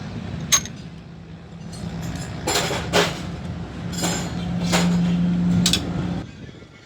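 Metal hand tools and engine parts clinking and knocking during cylinder-head removal. There is a sharp clink about half a second in, then a cluster of clinks and knocks between about two and a half and six seconds. Under them runs a steady low hum that stops about six seconds in.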